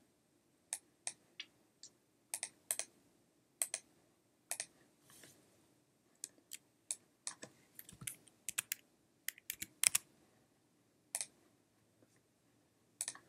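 Keystrokes and clicks of a computer keyboard and mouse, irregular and scattered, singly and in small runs, with a busier run of clicks about two-thirds of the way through.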